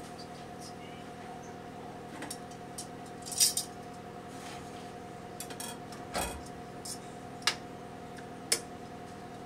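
Metal kitchen tongs clinking against an enamel pot while lifting poached chicken tenders out of the water. There are several sharp clicks spread over a few seconds, the loudest about three and a half seconds in, over a steady faint hum.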